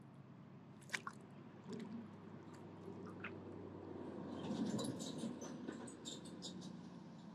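Paddle blade dipping and pulling through lake water. Small drips and ticks come first, then a louder stroke with splashing and swirling from about halfway through.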